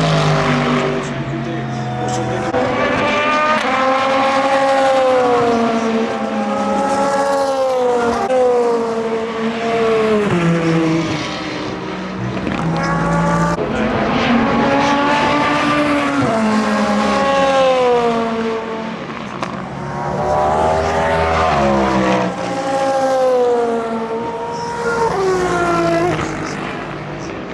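Endurance race car engines at racing speed, several cars passing in turn. Engine pitch climbs through each gear and drops sharply at the shifts, again and again.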